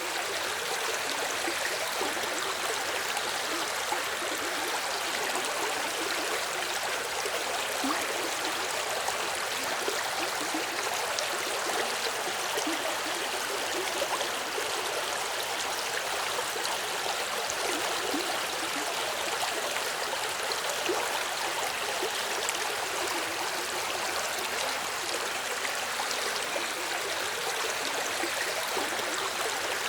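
Small river or stream flowing steadily, a continuous rushing and gurgling of water over stones.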